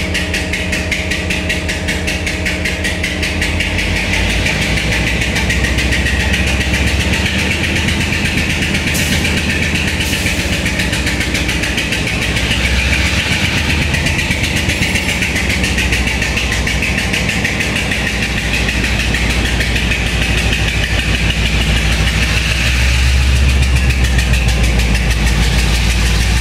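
Diesel engine of Taiwan Railways locomotive R120 running steadily with a fast, even knocking pulse and a deep rumble, the abnormal noise (異音) that the locomotive is making. The rumble grows a little louder near the end.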